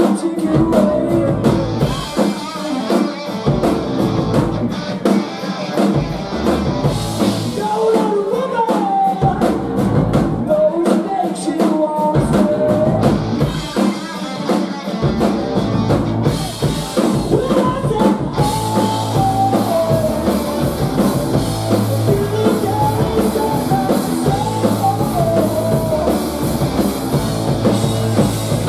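Live rock band playing: distorted electric guitar, bass guitar and drum kit, with a voice singing over them. The low bass end drops out briefly several times in the first half, then runs steadily.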